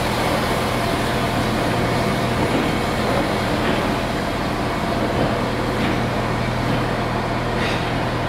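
LNER B1 4-6-0 steam locomotive hissing steam steadily, with a few faint knocks.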